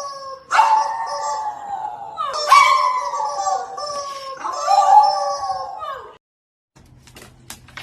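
A dog howling: three long howls in a row, each starting high and sliding down in pitch. They stop abruptly about six seconds in, followed by a few faint clicks.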